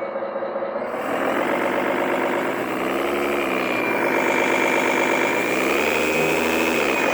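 Simulated truck engine sound from an RC truck's sound and light module, idling and revving up and back down twice, once near the middle and again about six seconds in. A thin steady high whine runs underneath.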